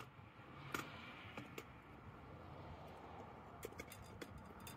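Faint, scattered clicks and small metal knocks as a diesel injection pump is handled against the engine. There is one sharper click about a second in and a quick run of clicks near the end.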